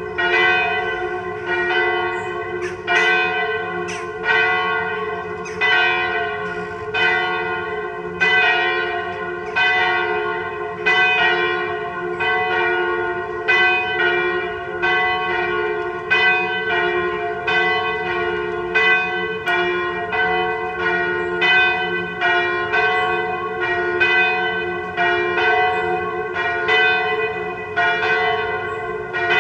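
Two swinging church bells pealing together: a 983 kg bell tuned to F, cast in 1950 by Michiels, and a 771 kg bell tuned to G-flat, cast in 1836 by Van Aerschodt, a semitone apart. Their strokes interleave in a steady rhythm, each stroke ringing on under the next.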